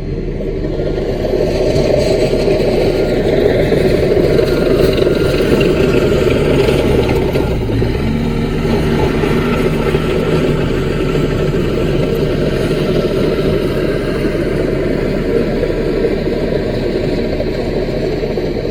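CAT mini bulldozer's diesel engine running steadily under work. It grows louder over the first few seconds, and its note changes about eight seconds in.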